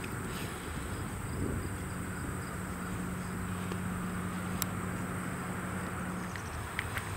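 Parked diesel locomotives idling with a steady low hum, and a steady high insect drone above it. A second low hum joins about two seconds in and stops shortly before the end.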